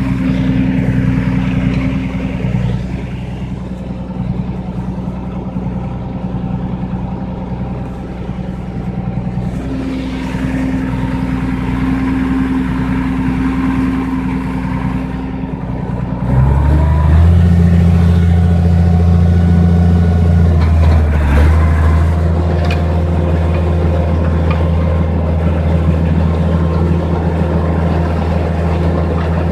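Allis-Chalmers 190XT tractor engine running steadily. About halfway through it changes abruptly, becoming louder and deeper, then settles into a new steady run.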